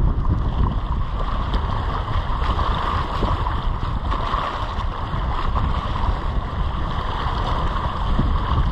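Strong wind buffeting the microphone, with choppy lake water lapping against the shore rocks.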